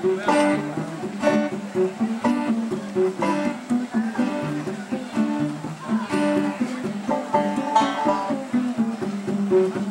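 Live acoustic band playing an instrumental break: an acoustic guitar plays steadily in rhythm over an upright bass line, with no singing.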